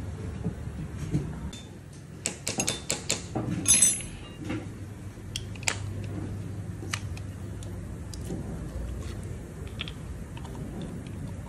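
Small metal clicks and clinks of a hand tool and bolts being worked on a motorcycle engine's clutch cover, with a quick run of clinks about two to four seconds in and scattered single clicks after.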